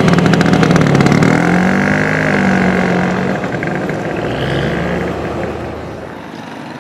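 Vintage Vespa scooter's two-stroke engine running under throttle, its pitch rising and falling over the first few seconds, then fading down.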